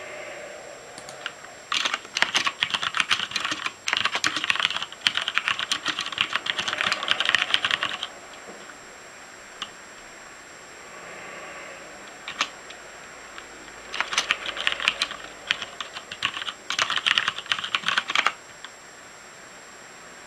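Typing on a Noppoo Choc Mini mechanical keyboard with linear Cherry MX Black switches: a run of rapid keystrokes lasting about six seconds, a pause with a single keystroke, then a second run of about four seconds.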